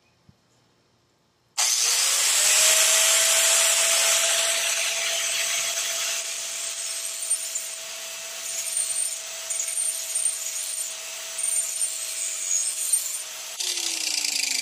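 Angle grinder starting about one and a half seconds in, its whine settling to a steady pitch, then grinding the edge of a steel lawn mower blade clamped in a vise. It is sharpening the cutting bevel, and the grinding noise swells and dips as the disc works along the edge. Near the end the sound changes abruptly and a falling whine follows.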